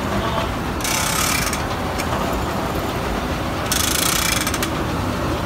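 Steam sawmill machinery running, with a large circular head saw and log carriage making a steady low rumble. Two loud bursts of hissing noise come about a second in and again near four seconds, along with a few sharp mechanical clicks.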